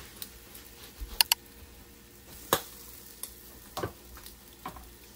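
Pancakes sizzling on an electric griddle as they are flipped with a spatula, with several sharp clicks of the spatula against the griddle, the loudest two in quick succession about a second in.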